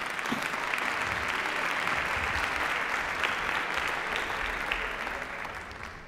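Large audience applauding: a steady, dense clapping that fades out near the end.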